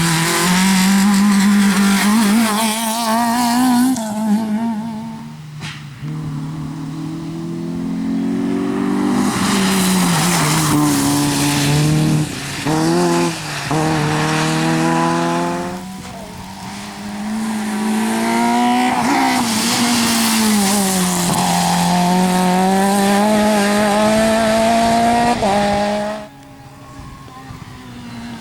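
Rally cars at full throttle, one after another, engines revving hard and rising and falling in pitch through gear changes and braking. The engine note changes abruptly a few times, as a new car comes through.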